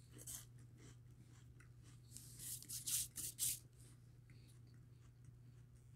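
Crumbly chocolate-dipped rolled wafers crunching as they are eaten and handled: a few short crisp crackles between about two and three and a half seconds in, over a low steady hum.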